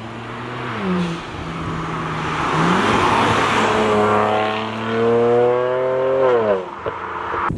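Car engine running under load, its pitch dropping about a second in, climbing again, rising slowly through the middle and falling away near the end.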